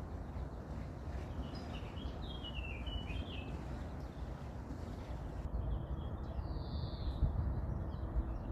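A songbird singing: a quick descending run of chirps a couple of seconds in and a single higher note near the end, over a steady low background rumble.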